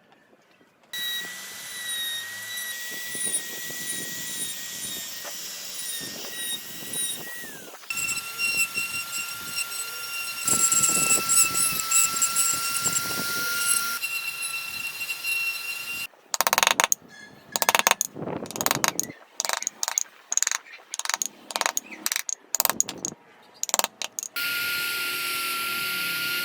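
Small high-speed power tool running on wood with a steady high-pitched whine. Its pitch drops a step about eight seconds in, and in the second half the sound cuts off and restarts many times in quick succession before settling back into a steady whine near the end.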